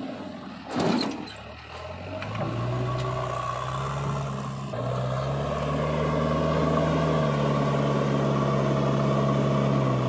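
JCB 3DX backhoe loader's diesel engine working under load, its pitch stepping up and holding higher after about two and a half seconds as it is revved. About a second in there is a loud, brief rush as a bucketful of soil drops into a tractor trolley.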